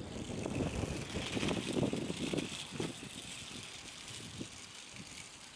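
Wind gusting on the microphone, strongest in the first three seconds and then easing off.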